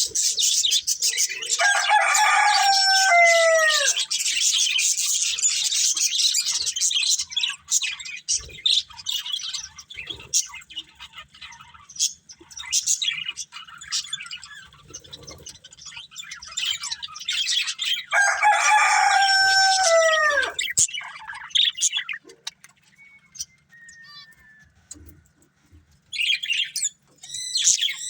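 Budgerigars chattering and warbling in a fast, high stream. The chatter thins out about halfway through and picks up again near the end. Twice, a lower, drawn-out call lasting about two seconds, with a falling end, rises over the chatter.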